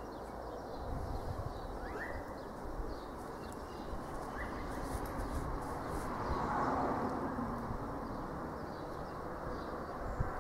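Steady rushing noise that swells a little past the middle, with a few short bird chirps on top.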